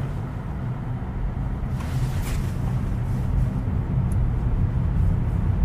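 Road and tyre noise inside the cabin of a moving Tesla Model Y: a steady low rumble with a soft hiss above it, and no engine sound, as the car is electric.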